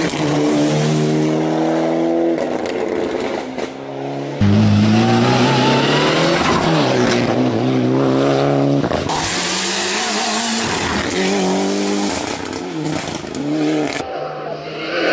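Competition rally car engine running hard at high revs, pitch climbing and dropping again and again as it accelerates and lifts. The sound changes abruptly a few times, as separate passes are joined.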